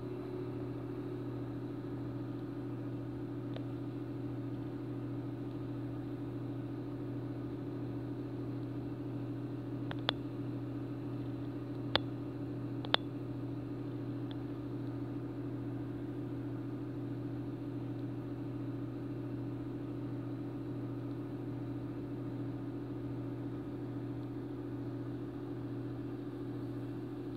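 Steady low hum of a small Red Sea reef aquarium's running equipment, its pumps going without pause. Three short sharp clicks come about ten, twelve and thirteen seconds in.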